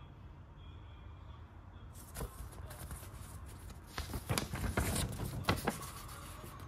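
Folded paper instruction sheet being handled and unfolded: rustling and crinkling that starts about two seconds in and is loudest, with several sharp crackles, a couple of seconds later.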